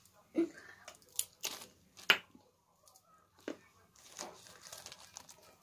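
Scattered short crinkles and clicks of candy wrappers being handled, the sharpest about two seconds in, with softer rustling near the end.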